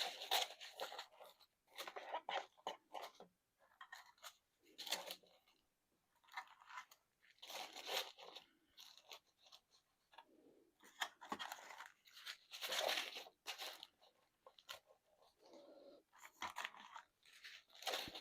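Small plastic baggies of diamond-painting drills crinkling and rustling in irregular bursts as they are handled and pushed into the slots of a storage case.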